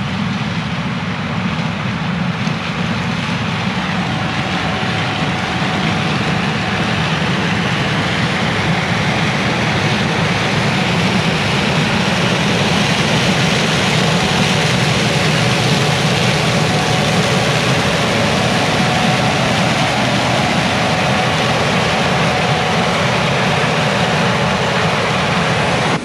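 Gleaner S97 combine running steadily while harvesting corn, as a continuous low engine and machinery noise.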